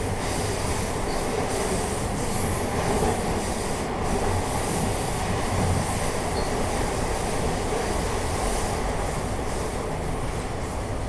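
Bombardier T1 subway train running between stations, heard from inside the car: a steady running noise of wheels on rails.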